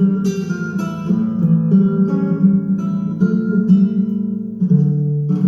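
Acoustic guitar playing an instrumental passage between sung verses: a run of plucked notes, with a chord struck late on and left ringing.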